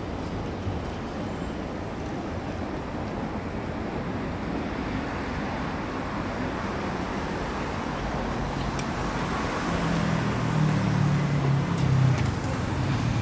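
Steady city road-traffic noise. A low droning sound grows louder over the last few seconds.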